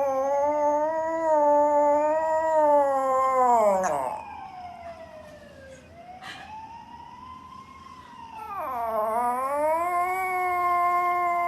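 A dog howling: two long, drawn-out howls that rise and fall in pitch. The first fades out about four seconds in; the second starts about eight seconds in.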